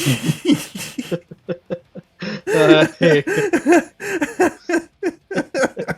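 People laughing in rapid short bursts, loudest about halfway through.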